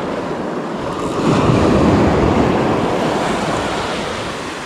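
Small waves breaking and washing over shoreline rocks, swelling about a second in and then slowly easing, with wind buffeting the microphone.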